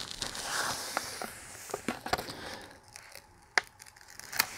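A diamond painting canvas and its plastic cover film rustling and crinkling as hands handle and flatten it. The rustling fades after about two seconds, and a couple of sharp ticks come near the end.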